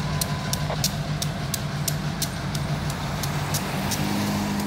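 EMD GP15-1 diesel locomotives, with 12-cylinder 645 engines, running slowly under load with a steady low engine hum. Over it comes a rapid, even ticking of about three to four ticks a second. The railfan says this ticking is air being blown through the lines to keep moisture from building up.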